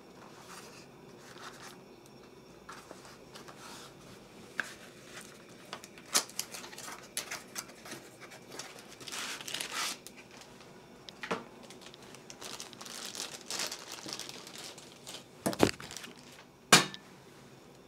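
Cardboard box of a replacement soldering iron handle being opened and handled, the handle and its cable pulled out: scattered rustles of cardboard and packaging, then two sharp knocks near the end, the second the loudest.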